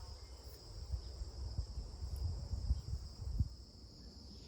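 Crickets trilling steadily in the background, a constant high-pitched chirring, with a few faint low knocks from handling the multitool.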